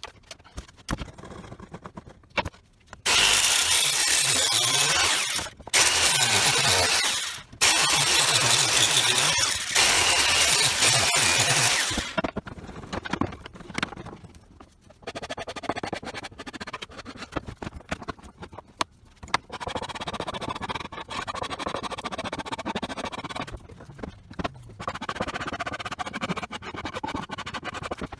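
A power tool running in three loud bursts, cutting or grinding under load, with its pitch shifting. Quieter, irregular workshop handling noise follows.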